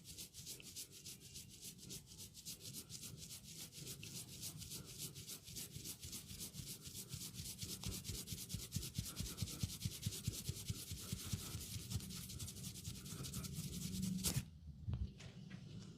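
Hands rubbing briskly over hair and scalp in a head massage: a fast, even run of scratchy rubbing strokes, several a second, that grows a little louder and then stops near the end.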